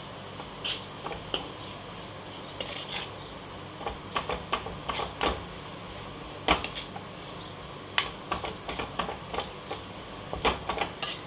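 Metal spoon scraping and clinking against a nonstick kadai while stirring spiced potato stuffing, in irregular taps and scrapes, loudest about halfway through, over a faint steady low hum.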